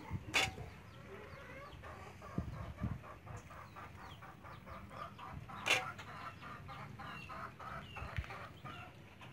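A hen clucking in a long, even run of short clucks, about three a second. Two sharp clinks of a metal ladle against the pot stand out, about half a second in and just before the middle.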